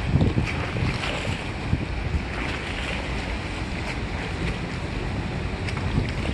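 Steady low rumble of a motorboat's engine with the wash of water against the hull, heard from on board, and wind buffeting the microphone.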